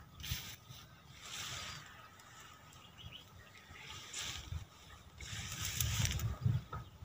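Leafy ground-cover vines rustling and swishing as a person wades through them on foot, in several bursts of about a second each.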